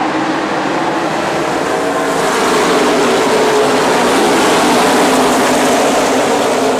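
A pack of NASCAR stock cars' V8 engines running at full throttle past the grandstand as the field accelerates to the green flag on a restart, many engine notes overlapping into one dense wall of sound. It swells about two seconds in as the pack comes closest.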